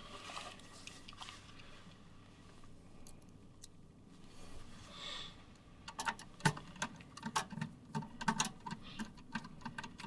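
Small metal clicks and ticks of screws and a screwdriver working the motherboard screws into their standoffs in a steel PC case, in a quick irregular run from about six seconds in.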